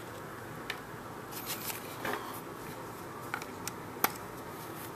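Scattered light clicks and taps from a Torx screwdriver and the plastic shell of an Xbox 360 controller being handled while it is unscrewed, over a faint steady hiss.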